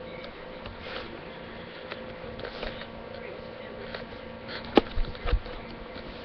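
Steady low electrical buzzing hum, with three sharp knocks close together near the end, like a webcam being bumped or handled.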